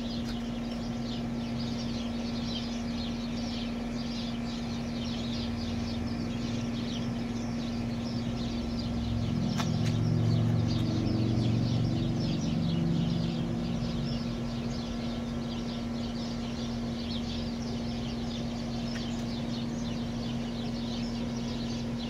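Small birds chirping continuously in a busy chorus over a steady low hum. A low rumble swells and fades about halfway through.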